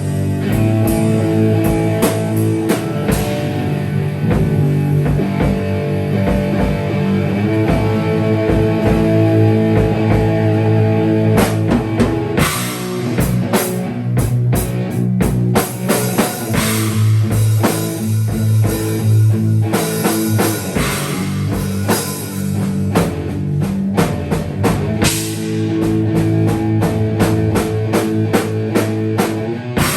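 Improvised rock jam by a live band: drum kit playing a busy pattern of hits under guitar and bass notes.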